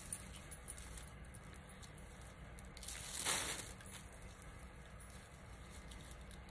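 Dry raffia strands rustling as they are handled and ripped apart into thin pieces, with one louder rasping tear about three seconds in.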